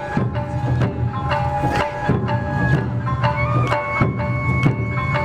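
Music with held melody notes over a low hum, and sharp percussive hits about twice a second.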